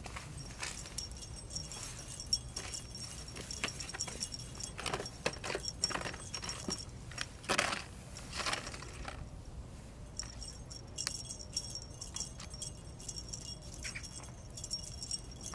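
Light jingling with scattered clicks and rattles as a cat plays with its toys, batting a feather wand toy and a plastic tray of fish-shaped toys.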